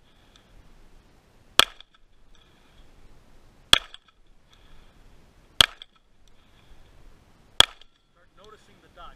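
Four single pistol shots from a red-dot-sighted Glock, evenly spaced about two seconds apart, each a sharp crack.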